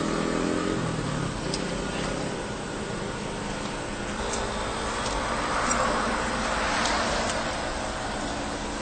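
Steady road traffic noise, with a car passing that swells and fades about midway through.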